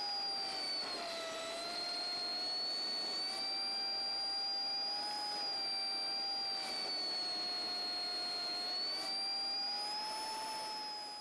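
1948 Ford F5 bus driving down the road, heard as a steady high whine over a lower tone. The pitch sags about a second in and rises again near the end as road speed changes.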